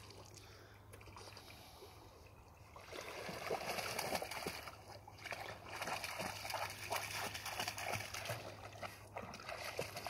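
Water splashing and sloshing at a river's edge, starting about three seconds in and rising and falling irregularly, as a dog moves through the water.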